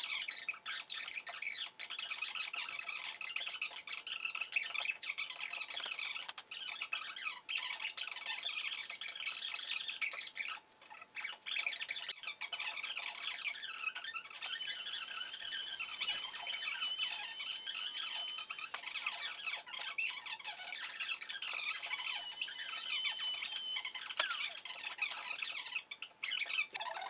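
Crackling handling noise, then a corded handheld power tool runs with a high-pitched whine for about four seconds and again for about two seconds a little later.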